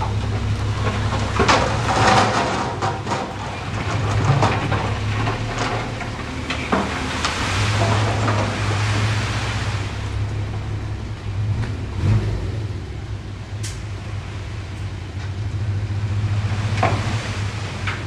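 Heavy construction machine's diesel engine running steadily, with scattered knocks and crackly clatter over it, busiest in the first few seconds.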